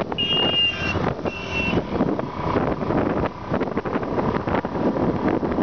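Wind buffeting the microphone on a moving motorcycle, over engine and road noise. Two short high-pitched beeps sound in the first two seconds.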